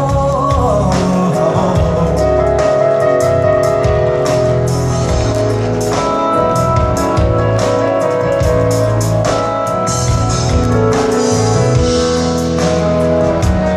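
Live pop band playing an instrumental passage of a Latin pop song, with a steady drum-kit beat under sustained instrument chords; a sung note trails off in the first second.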